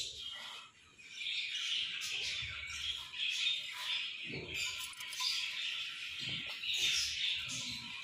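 Budgerigars chirping and chattering in a dense, continuous twitter, broken by a brief lull about a second in, with a few soft low thumps.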